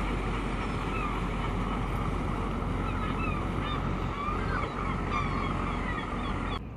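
A flock of gulls calling over and over above the steady low running of a small fishing cutter's engine, with wind and water noise; the sound drops away abruptly near the end.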